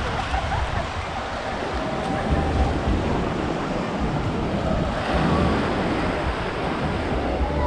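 Small waves breaking and washing up a sandy beach in a steady rush, with wind gusting on the microphone.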